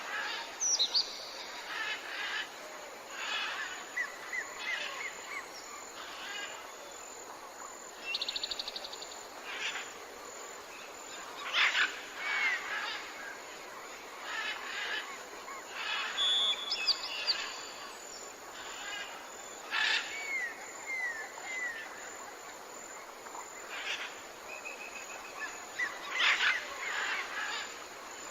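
Several wild birds calling and singing at once: a mix of short chirps, a fast trill and short curved whistled notes, over a steady faint background hiss.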